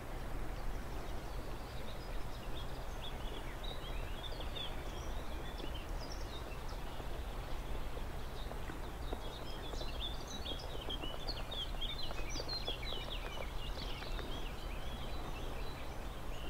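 Many small birds chirping and singing in quick short notes, busier from about halfway through, over a steady background rush of noise.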